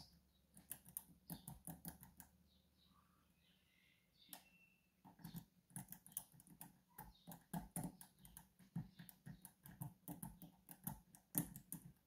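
Faint, irregular clicks of a hook pick working the key pins of a Medeco Biaxial cam lock under heavy tension, the pins being lifted and rotated. There is a brief lull about two and a half seconds in.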